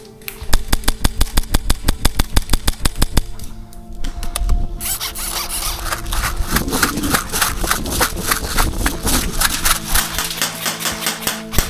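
Airsoft rifle firing full auto at about nine shots a second for roughly three seconds. A denser, quicker crackle of airsoft fire follows about five seconds in.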